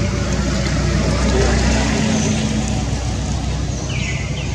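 Steady low rumble of a motor vehicle engine running, swelling a little between about one and three seconds in, with a pair of short falling chirps near the end.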